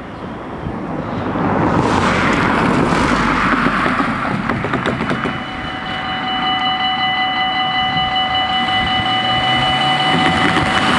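Level-crossing warning bells start ringing about six seconds in, a steady high ringing, as the crossing is activated for an approaching train. Before that, the sound of passing road traffic.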